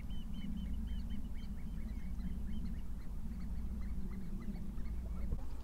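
A flock of waterbirds calling across the estuary: many short overlapping calls, thickest in the first couple of seconds and then thinning out, over a steady low rumble.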